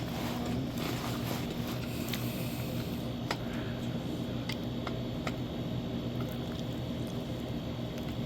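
Steady low hum under a few sharp, scattered clicks of steel tire spoons working against the electric unicycle's wheel rim as the tire is levered off.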